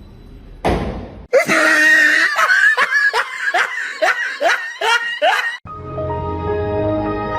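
A short burst of noise, then loud laughter: a string of about eight falling-pitch 'ha's. Background music takes over near the end.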